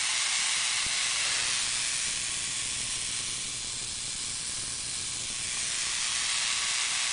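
High-voltage corona discharge hissing steadily from a powered foil 'lifter' ionocraft as it hovers on its flyback-transformer supply, with a faint hum underneath. The hiss eases a little midway, then strengthens again.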